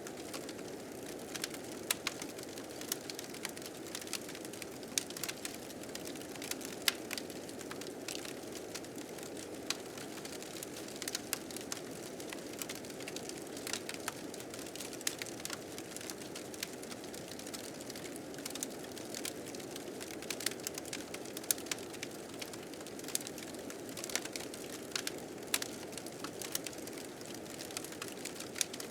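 Fire crackling with frequent irregular sharp pops, over a steady low rush of blizzard wind.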